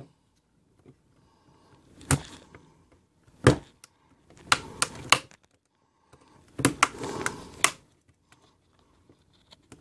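Sharp plastic clicks and snaps from a power bank's plastic case being pried open along its seam with a thin metal pry tool: single clicks about two and three and a half seconds in, then two quick runs of several clicks.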